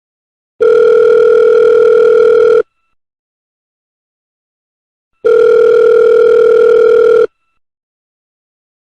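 Telephone ringback tone heard on the calling end of the line: a steady electronic tone lasting about two seconds, sounding twice with a silent gap between. It signals that the call is ringing through and has not yet been answered.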